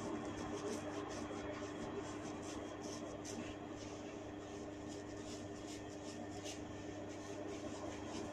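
Faint, irregular crackling clicks as tufts of hair are tugged and snapped in hair cracking (jetut rambut), over a steady low hum.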